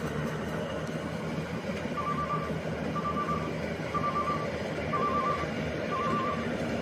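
Rice combine harvester's engine running steadily, with five short warning beeps about one a second starting about two seconds in.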